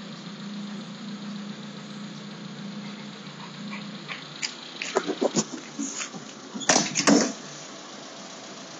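Small pickup truck's engine idling with a steady low hum. About five seconds in, a German shepherd in the truck bed makes a quick run of short sounds, then two louder ones a couple of seconds later.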